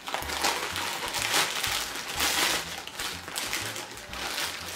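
White plastic bag crinkling and rustling in irregular bursts as it is handled and searched through for contents.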